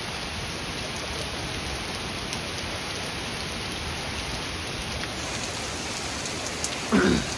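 Heavy thunderstorm rain pouring steadily onto the road and yard, with a few faint ticks of drops. A brief loud sound cuts in near the end.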